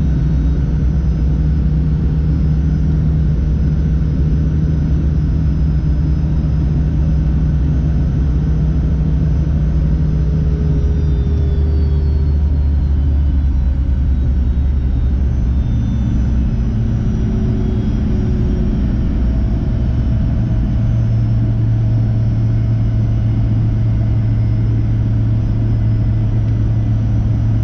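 Inside the cabin of a Fokker 100, the Rolls-Royce Tay turbofan engines run at low power as a steady low drone. The drone's pitch shifts about halfway through and again near three quarters of the way.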